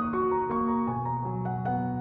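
Slow instrumental background music played on a keyboard, with sustained notes that change about every half second.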